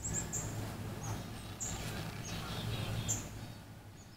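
Close rustling and crunching noise that fades near the end, with a bird's short high chirps throughout, some in quick runs of five or six.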